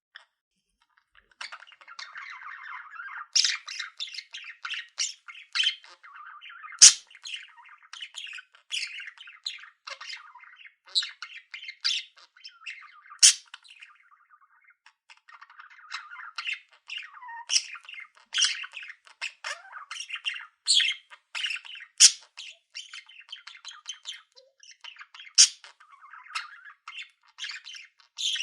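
Budgerigars warbling: a continuous, busy chatter of rapid notes broken by sharp, loud, high-pitched chirps, with a short lull about halfway through.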